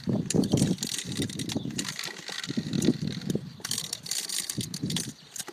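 Hand-operated drench pump being worked up and down, its plunger and metal fittings clicking and the liquid sloshing as it is pumped from a bucket into a cow's mouth.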